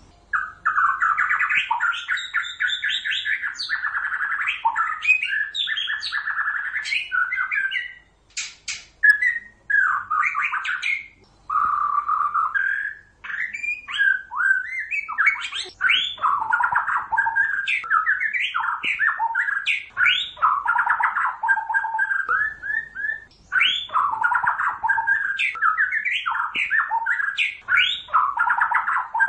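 White-rumped shama singing a long, fast run of varied whistled and chattering phrases with a few short breaks, recorded as a lure call for trapping the bird.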